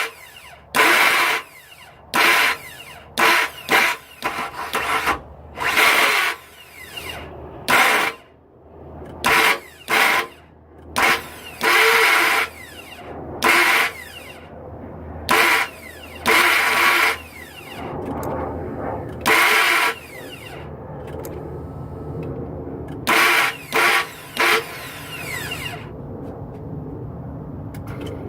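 Ratchet wrench turning the engine's crankshaft by hand: a long series of short, sharp bursts of clicking, about one a second and irregularly spaced, with a low steady hum rising underneath after about 18 seconds.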